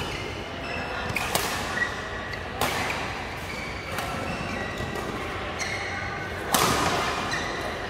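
Badminton rackets striking a shuttlecock several times in a rally, sharp cracks spaced irregularly about a second or more apart, echoing in a large hall; the loudest hit comes near the end.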